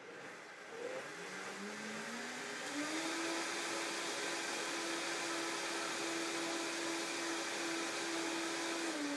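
Vitamix blender running on a liquid tahini dressing. The motor winds up in pitch over the first few seconds as it speeds up, then runs steadily at high speed.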